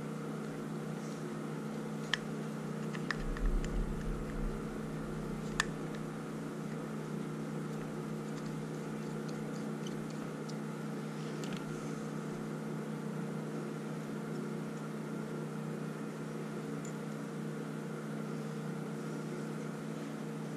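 A steady machine hum with several pitched tones, like a fan or air handler running, throughout. Over it come a handful of light metallic clicks, mostly in the first six seconds, from a small screwdriver working the jets out of a 1985 Honda Shadow carburetor body.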